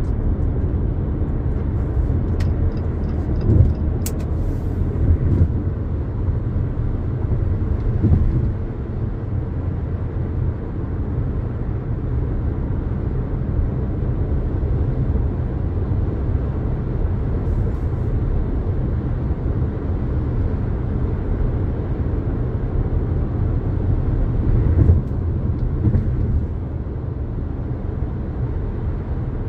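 2022 Jeep Compass Latitude being driven, a steady low rumble of road and drivetrain noise, with a few brief louder bumps along the way.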